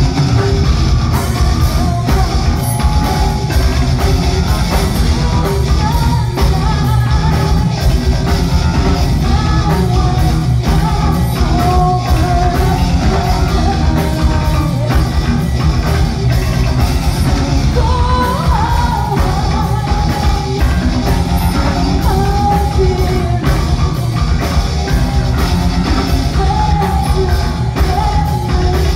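Heavy metal band playing live, loud: a woman singing long held notes over electric guitar, bass and fast drumming.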